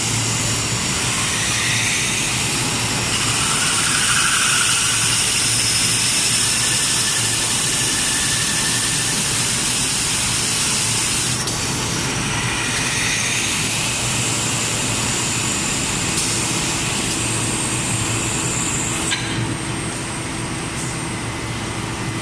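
A twin-head glass drilling machine for stove glass running steadily: a constant low hum under a loud hiss. The hiss eases a few seconds before the end.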